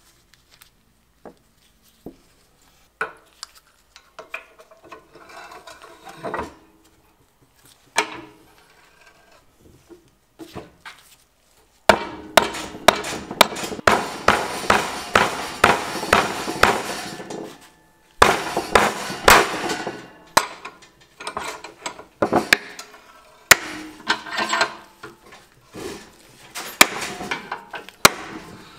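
Scattered clicks of small metal parts being handled. About twelve seconds in, sharp metal-on-metal blows start, about three a second, in runs of several seconds, as a metal part clamped in a bench vise is struck repeatedly.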